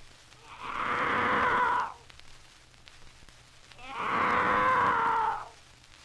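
Two long, drawn-out animal cries from a 78 rpm sound-effects record of eerie animal screeches, each about a second and a half, a couple of seconds apart, with faint record surface hiss between them.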